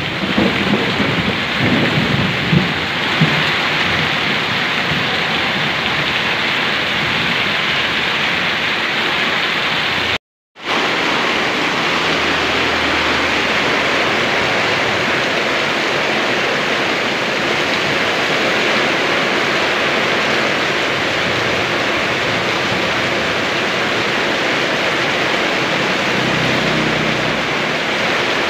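Steady rain with low rumbles in the first few seconds. The sound cuts out for a moment about ten seconds in, then the rain carries on.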